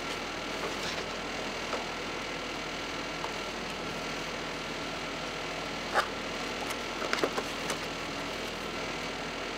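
Pages of a paper desk calendar being handled over a steady background hum: one sharp tap about six seconds in, then a few light taps and rustles a second later.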